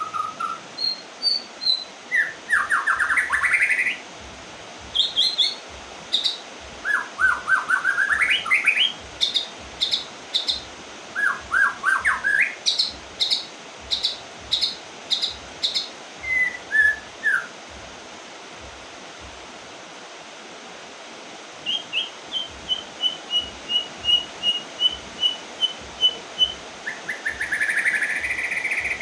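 White-rumped shama singing: varied whistled phrases with fast rising sweeps and high clipped notes, a pause of a few seconds, then a run of even repeated notes leading into a fuller phrase near the end. The bird has just come out of its moult. A steady hiss and regular low knocks about twice a second run underneath.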